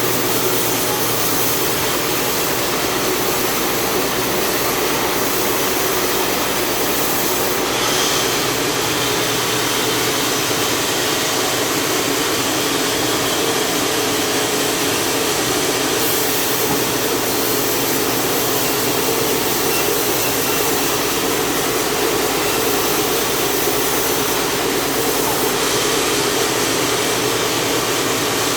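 Powered saw running steadily while ripping a large jengkol log lengthwise: a loud, unbroken mechanical drone with a steady hum.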